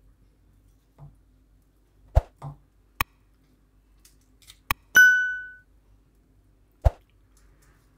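Two sharp mouse clicks and then a bright bell ding that rings out for under a second about five seconds in, the sound effect of an on-screen subscribe-button animation. A few soft, dull thumps come before it and once more near the end.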